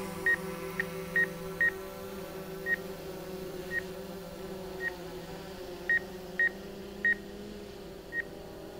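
DJI Mavic 2 quadcopter's propellers humming steadily in flight, the pitch drifting slightly, with about a dozen short high electronic beeps at uneven intervals.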